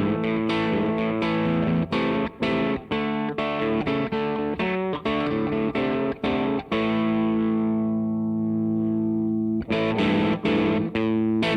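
Electric guitar played through a DemonFX YJM308 overdrive pedal: short distorted picked notes and chords cut by brief stops, then a chord held and left to ring for about three seconds before the choppy playing resumes near the end.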